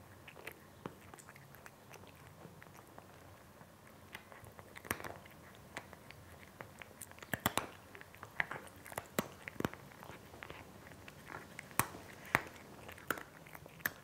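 A cat chewing dry kibble: irregular sharp crunches, sparse at first and coming thicker from about four seconds in.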